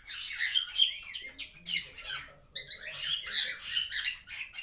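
Pet cockatiel squeaking: rapid runs of short, high chirps and squeaks with a brief pause midway.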